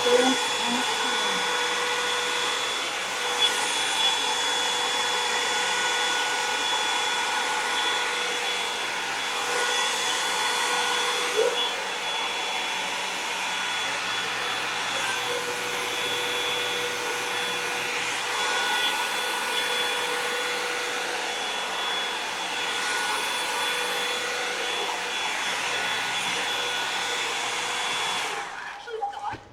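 Revlon One-Step hair dryer and volumizer hot-air brush running steadily, a rush of blown air with a steady whine over it, switched off about a second before the end.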